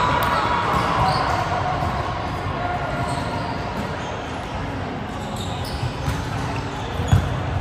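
Volleyballs being hit and bouncing on the courts, echoing in a large sports hall, over a background of distant chatter. The loudest hit comes just after seven seconds in.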